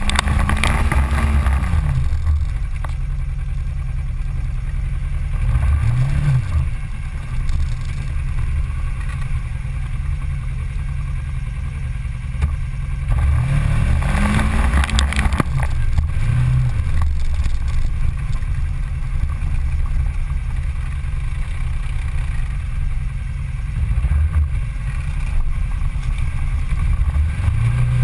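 Engine of a Ranger side-by-side UTV driving through trail mud: a steady low drone that revs up and drops back several times, about halfway through most clearly. A few sharp knocks sound over it.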